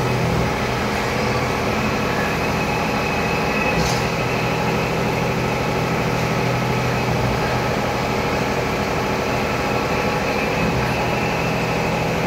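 Macpower V1366 vertical machining center milling under flood coolant: a steady machining hum from spindle and cutter, with several steady low tones and coolant spray. One brief sharp click about four seconds in.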